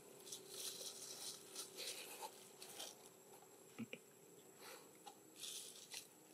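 Faint, irregular rustling and light crackles, with a few small clicks, over a faint steady hum.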